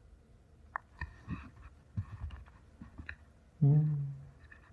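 Scattered faint clicks and knocks of a camera being handled up close, with a brief low man's vocal sound, like a hum, about three and a half seconds in.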